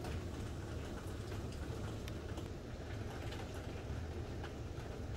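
Hurricane rain and gusting wind: a steady low rumble of wind under a hiss of heavy rain, with scattered drops ticking throughout.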